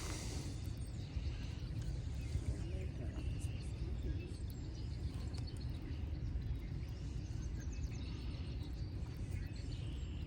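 Outdoor background noise: a steady low rumble with faint, scattered high chirps over it.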